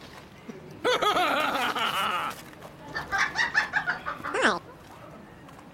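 Chicken calls: one long wavering call about a second in, then a quick run of short clucking calls that ends in a falling squawk.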